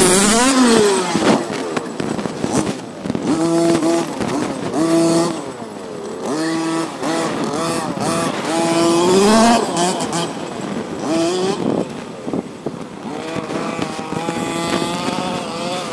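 Two-stroke gas engine of a Losi MTXL 1/5-scale RC monster truck, an OBR G340 SS, revving up and down in repeated throttle bursts as the truck is driven hard, its pitch rising and falling many times.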